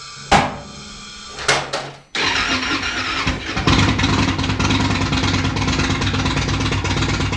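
An engine starting and then running steadily with an even, fast throb.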